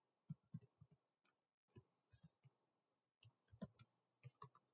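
Faint keystrokes on a computer keyboard: typing in a few quick clusters of clicks with short pauses between.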